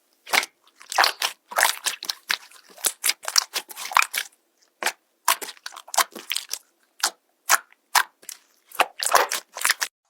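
Slime being squeezed and pressed by hand, giving a series of irregular short crackles and pops, one or two strong ones a second.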